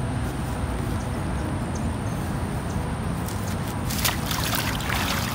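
Splashing in shallow, muddy ditch water, starting about three seconds in and running in a quick series of splashes, over a steady low rumble.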